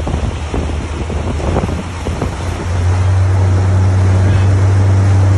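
Outboard motor running behind a moving boat, with wind buffeting the microphone and water splashing. A bit more than halfway through, the engine hum grows louder and steadier.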